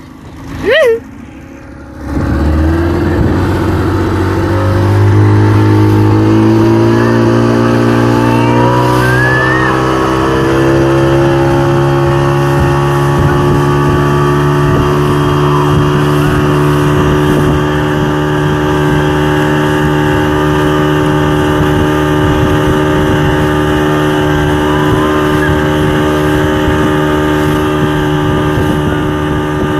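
Motorboat engine towing a banana boat, speeding up with its pitch rising over about ten seconds, then running steady at speed over a rush of wind and water noise.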